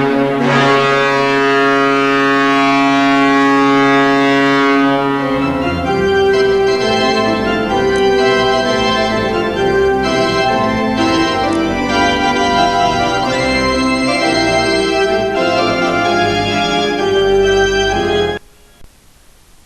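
Ice hockey arena goal horn sounding one long, steady chord, then about five seconds in a tune of held, changing organ-like notes takes over. It cuts off suddenly near the end.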